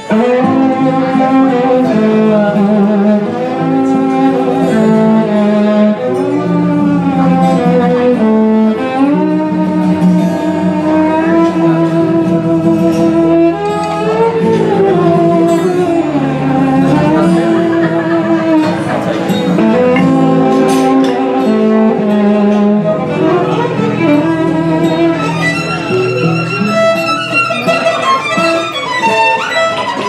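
Violin playing a fast gypsy-style melody, its notes sliding up and down between pitches, over a lower sustained accompaniment.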